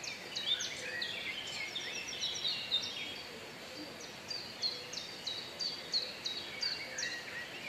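Small songbirds singing in the trees: quick, high notes that slide down, repeated several times a second, several birds overlapping, over faint outdoor background noise.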